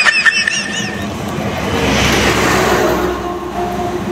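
Motor vehicle running: engine and road noise swelling to its loudest about two seconds in, then easing off.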